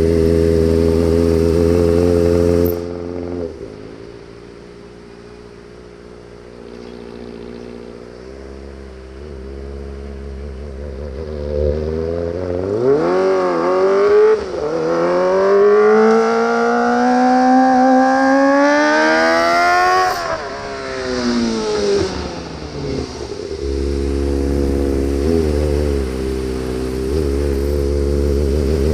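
Kawasaki ZX25R inline-four engine with an Austin Racing exhaust. It runs steadily, drops away to a quieter hum a few seconds in, then revs up in a long climb in pitch, falls back and settles into a steady run again near the end.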